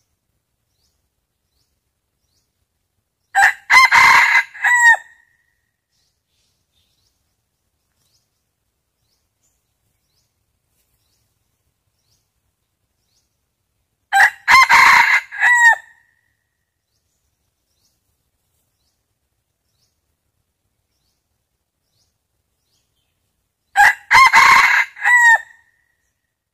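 Red junglefowl rooster crowing three times, about ten seconds apart, each crow a couple of seconds long and ending in a short clipped note.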